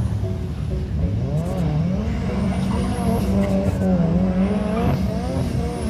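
Drift car's engine revving, its pitch rising and falling again and again as it is driven round the course.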